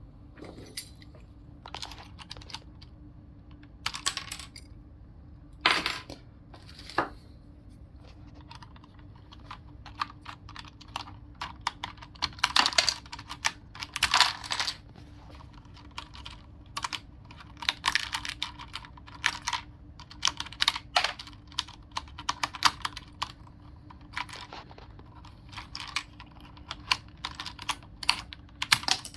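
Irregular clicking and plastic clatter from a Logitech G710+ mechanical keyboard being handled during cleaning, in scattered single clicks and short rattling clusters. A faint steady hum runs underneath.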